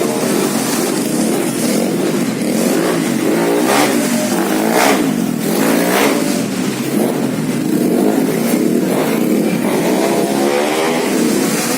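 Several racing automatic-scooter engines revving at once, their pitches rising and falling and crossing each other without a break.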